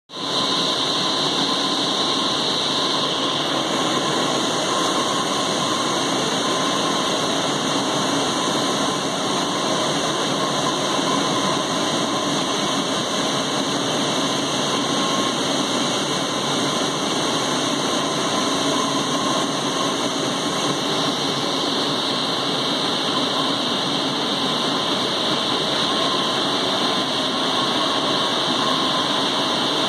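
Teknoway T100 direct warping machine running, its warp beam spinning as it winds yarn: a steady whirring hiss with a faint high whine.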